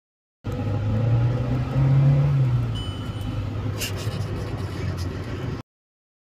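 2017 VW Polo GT TSI's petrol engine running at idle, heard from inside the cabin, its pitch and loudness rising briefly about two seconds in and settling back. The car is running with its EPC, traction-control and check-engine warning lights on. A sharp click sounds a little before four seconds in.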